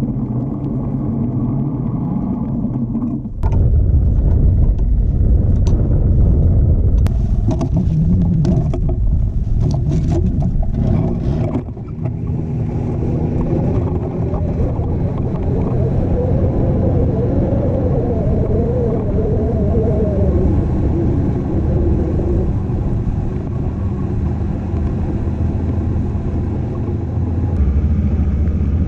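Snowmobile engine running steadily; it gets louder about three and a half seconds in. Some sharp knocks and clatter come through about seven to eleven seconds in.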